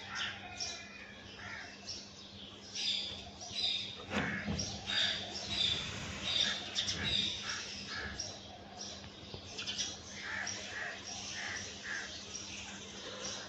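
Several birds chirping and calling at once in a morning chorus, short repeated notes overlapping throughout, with a faint steady hum underneath and a dull thump about four seconds in.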